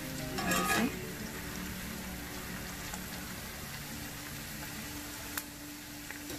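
Sliced red onions frying in hot oil in a cast iron skillet over medium heat, a steady sizzle and bubbling. A metal slotted spoon stirs and scrapes the pan briefly about half a second in, and there is a single sharp tap near the end.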